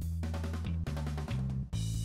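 Background music: a bass line of held notes with drum beats.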